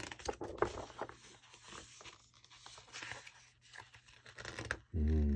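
Paper pages of a large hardback book rustling, sliding and scratching under the hands as they are smoothed and turned, with a few light taps. Near the end comes a louder, short steady hum from a voice.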